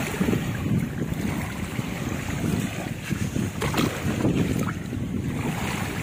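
Small waves washing over a sandy beach, with wind buffeting the microphone.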